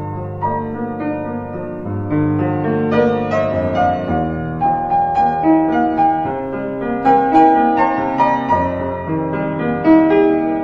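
Background piano music: a gentle melody of changing notes over held low notes.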